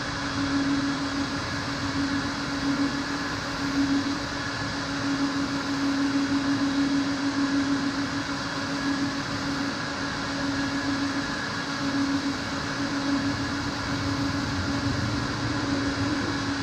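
A motor-driven machine running steadily, with a constant hum over an even rushing noise.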